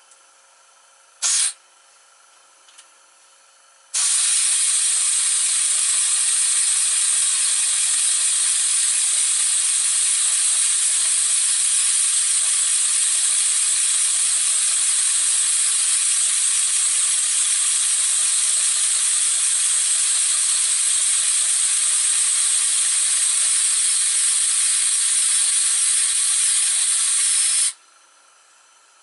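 Compressed air hissing through a model diagonal paddle steamer engine: a short puff just over a second in, then about four seconds in a steady loud hiss as the engine spins its paddle wheels very fast, cutting off suddenly near the end. Speed can't be controlled with the air supply, and it runs far too fast.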